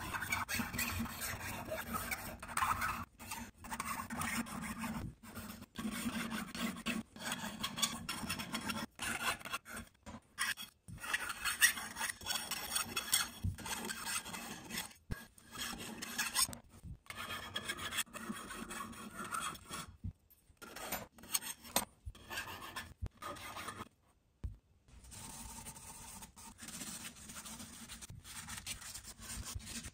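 Needle file rasping along the edge of a silver-and-copper mokume gane ring, in many short repeated strokes with brief pauses between. Near the end it gives way to a steadier, quieter rubbing.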